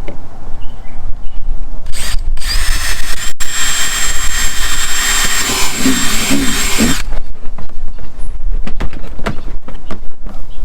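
Power drill running for about four and a half seconds as it bores a mounting hole for a rock light, then stopping abruptly. Scattered clicks and knocks of handling follow.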